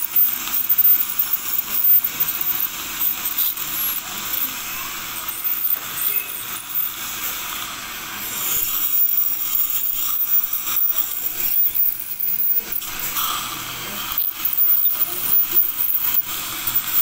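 Ultrasonic dental scaler running, a hiss of its water spray as the tip works dental calculus (tartar) off the lower front teeth. The hiss rises and falls as the tip moves.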